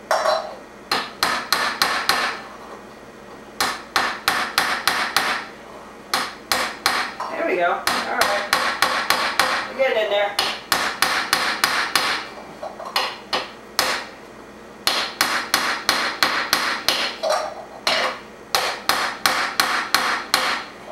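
Claw hammer tapping lightly on the rim of a cut-down aluminum drink can, working the lip in over an aluminum ring. The taps come in quick runs of about five a second, broken by short pauses.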